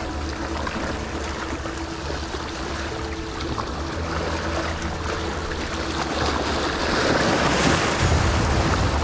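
Sea waves washing and breaking against the rocks of a jetty. The surf grows louder in the second half, with a bigger wave surging over the rocks near the end.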